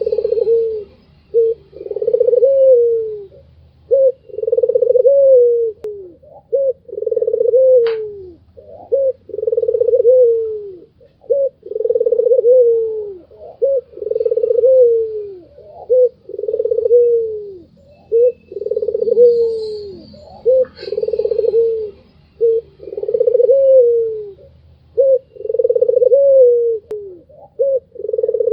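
White Barbary dove (puter putih) cooing over and over in a steady series: long coos, each about a second and falling in pitch at the end, with short notes between. A few sharp clicks are also heard.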